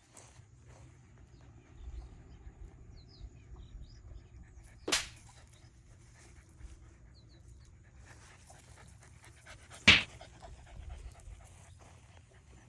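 A Shiba Inu panting, with two short, loud, noisy bursts about five seconds apart.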